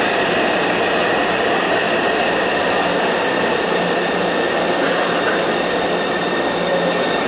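Taipei Metro electric train pulling into an underground station and slowing: a steady, loud rush of steel wheels on rail, with thin steady high tones over it.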